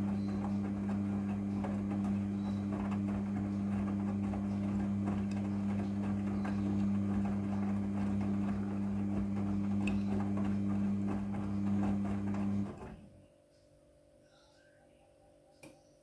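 Midea front-loading washing machine turning its drum: a steady motor hum with the laundry tumbling inside, which stops suddenly about 13 seconds in as the drum comes to rest, followed by near silence and one faint click.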